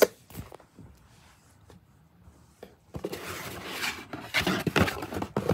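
Handling noise: a click at the start, then, after a quiet spell, rustling and light knocks in the second half as a cardboard box and plush toys are moved about.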